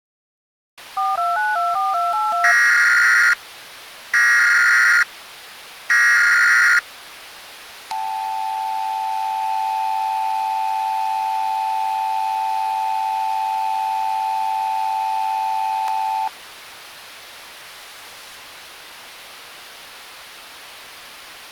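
Emergency Alert System tones: a quick run of touch-tone beeps, then three loud screeching data bursts of the alert header, then the steady two-tone attention signal held for about eight seconds. The signal cuts off into a steady hiss.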